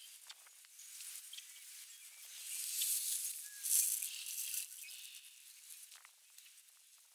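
Dry rustling and crackling as a red-tailed hawk tears at a rabbit carcass in dry grass, loudest for a couple of seconds in the middle, with scattered light clicks.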